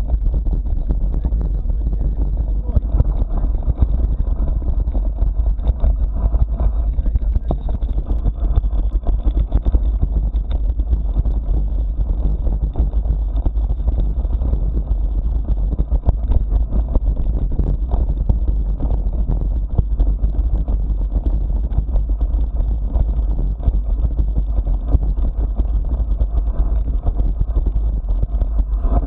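Continuous low rumble of wind buffeting the microphone, mixed with constant rattling and jolting from riding over a bumpy dirt track.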